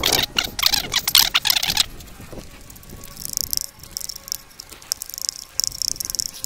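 Wooden chopsticks scraping and clicking against an aluminium mess tin as the last rice is shovelled out of it: a rapid clatter for the first two seconds, then lighter, hissy scraping.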